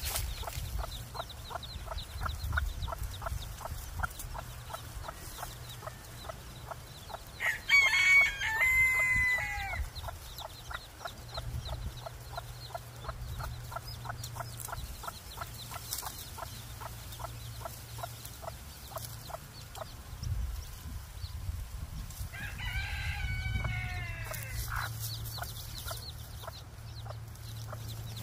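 Bantam chickens, a white hen with her chicks: a quick run of short, evenly spaced calls through the first half, and two long, loud calls about eight and twenty-three seconds in.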